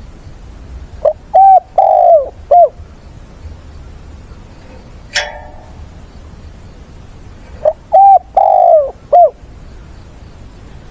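Spotted dove cooing: two phrases about six seconds apart, each of four notes with the third held longest. Between them comes one sharp click.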